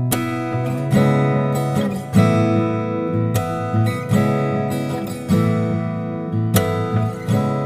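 Background music: an acoustic guitar strumming chords, with a new strum about once a second.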